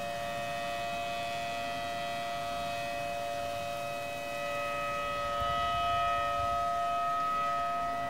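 Outdoor tornado warning siren holding a steady wail, several tones sounding together as a chord, growing a little louder about five seconds in.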